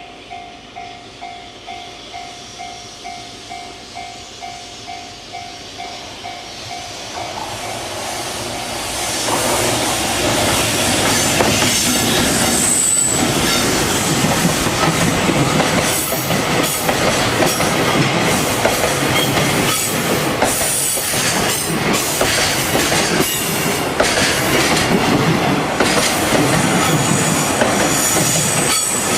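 Japanese level-crossing warning bell ringing a steady repeated ding, about two a second. From about seven seconds in, an EH200 electric locomotive and its container freight wagons approach and pass, a loud rumble with wheels clicking over the rail joints and a brief high wheel squeal a little before halfway.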